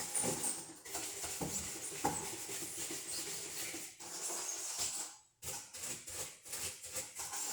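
A scrubber rubbing back and forth on the lower part of a refrigerator door: irregular scratchy scrubbing strokes, with short breaks about four and five and a half seconds in.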